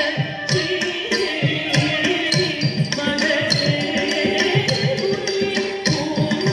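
Carnatic music accompanying a Bharatanatyam dance: a held melody over a steady drum beat, with sharp strikes recurring at an even pace.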